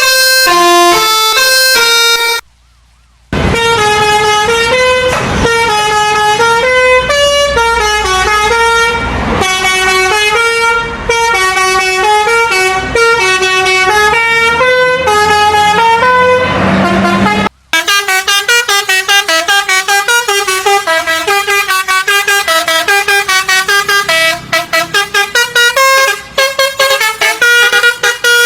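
Indonesian 'telolet basuri' musical bus horn playing melodies note by note. It breaks off for about a second roughly two and a half seconds in. After about seventeen seconds it switches to a faster tune of short, clipped notes.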